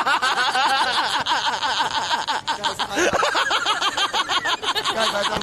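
Men laughing hard, in quick repeated pitched 'ha's.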